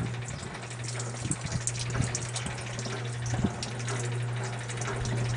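Kenmore wringer washing machine running with a steady motor hum, water splashing and pouring, and irregular knocks as dirty rags are wrung out.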